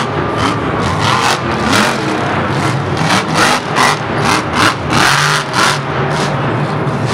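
Monster truck's supercharged V8 engine revving in rapid bursts, about three a second, as the driver works the throttle.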